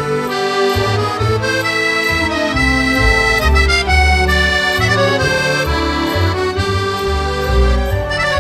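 Background music: an accordion tune with held notes over a moving bass line.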